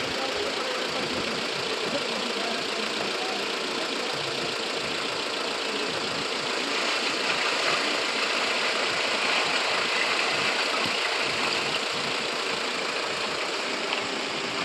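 A vehicle engine idling steadily, a little louder for a few seconds near the middle.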